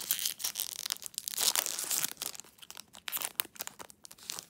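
Foil wrapper of a Pokémon trading card booster pack being torn open and crinkled by hand: a run of crackly rips and crinkles, loudest about a second and a half in.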